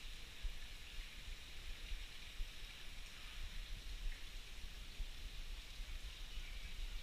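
Steady hiss of light rain falling, with an uneven low rumble of wind on the microphone.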